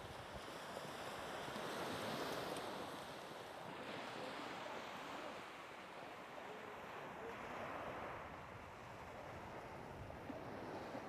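Sea surf washing onto the beach, swelling and easing every few seconds, with wind.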